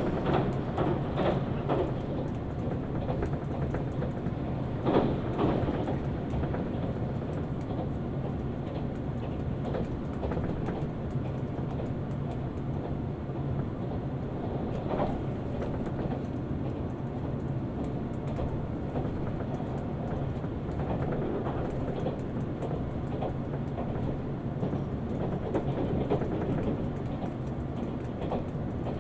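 Train running along the track, heard from inside the carriage: a steady rumble with a low hum, and a few louder wheel knocks over the rail joints, about five seconds in and again near the middle.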